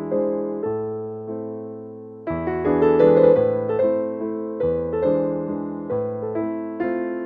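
Background piano music: a gentle melody of struck notes that fade away, growing fuller and louder a little over two seconds in.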